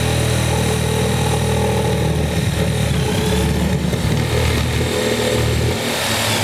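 Hand-held electric power saw running steadily as it cuts through a wooden board, its motor note shifting slightly near the end.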